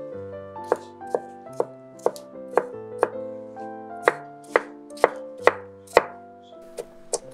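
Chef's knife dicing tomato on an end-grain wooden cutting board: sharp, regular knife strikes on the board, about two a second.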